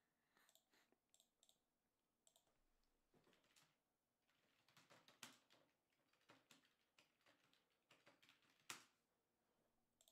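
Faint typing and clicking on a computer keyboard and mouse: scattered single keystrokes and short runs of keys.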